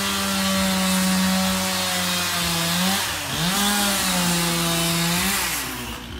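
Two-stroke chainsaw running at high revs while cutting wood. Its pitch dips and recovers about three seconds in as the chain bites, holds a little lower, then falls away as it comes off the cut near the end.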